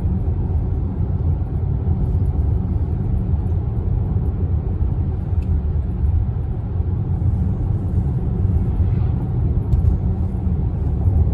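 Steady low rumble of a car driving at highway speed, heard from inside the cabin, with a few faint clicks.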